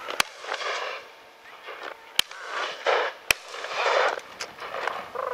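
Three shotgun shots fired at driven partridges, one right at the start and two more about a second apart in the middle.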